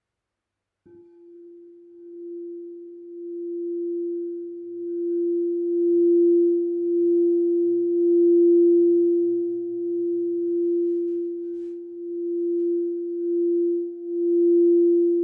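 A singing bowl sounding one steady, pure tone that starts abruptly about a second in and then swells louder and softer in slow waves.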